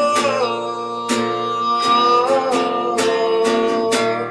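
A man singing a wordless, drawn-out 'oh' melody over a strummed acoustic guitar, the held notes fading near the end.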